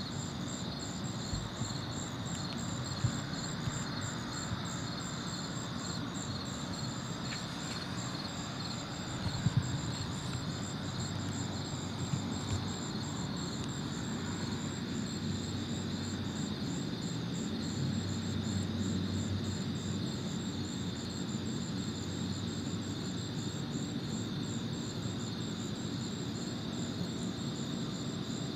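A chorus of night insects: steady high trilling with an even, rhythmic pulse on top. A low steady rumble sits underneath, with a few faint knocks.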